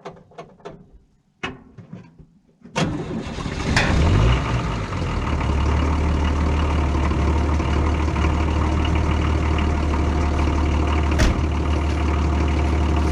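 A few clicks and knocks, then a Nissan SD33 inline-six diesel starts almost at once, about three seconds in. It revs briefly and settles into a steady idle. It is an easy winter cold start, helped by glow plugs and an engine pre-warmed for about three hours on its block heater.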